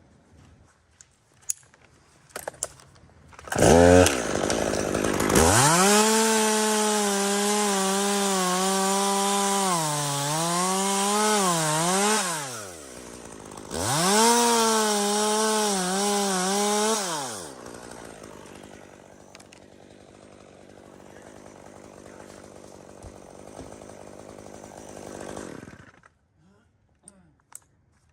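Two-stroke chainsaw started about four seconds in, then run at full throttle for about six seconds with small dips in speed, let down, and run up again for about three seconds. It then idles steadily for several seconds and shuts off.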